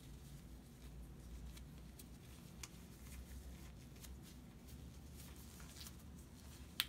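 Faint rustling of disposable exam gloves being pulled on and adjusted, with scattered small clicks and one sharper click near the end, over a low steady room hum.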